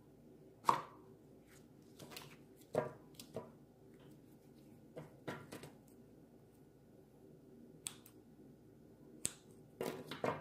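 Butter slime being stretched, folded and squeezed by hand, giving a dozen or so short clicks and pops at irregular intervals, with a quick cluster of them near the end.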